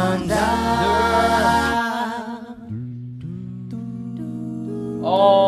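Vocal group singing a cappella in close harmony over a held low bass part. The voices thin out for a moment in the middle, then higher voices come in louder near the end.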